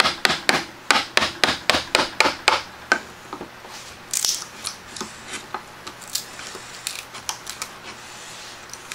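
Wood chisel chopping and splitting waste out of a lap joint: a quick run of sharp knocks, about four a second, for the first three seconds, then softer scattered cracks and scrapes as chips split away from the wood.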